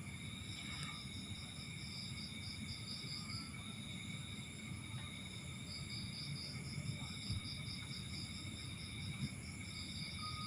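Insects chirping steadily in the background: a rapid pulsing trill with several steady high-pitched tones, over a low rumble.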